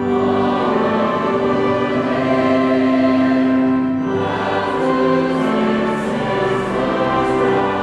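A large choir singing a hymn with instrumental accompaniment, in long held notes.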